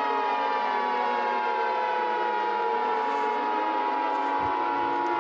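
Civil defense siren wailing, its pitched tones slowly falling, with one steady tone held underneath.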